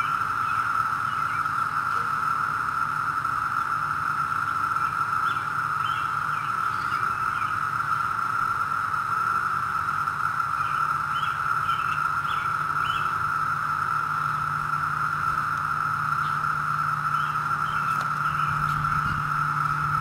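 Chorus of 17-year periodical cicadas (the northern Illinois brood) calling from the trees: one steady, unbroken shrill drone at a single pitch, with faint short chirps over it.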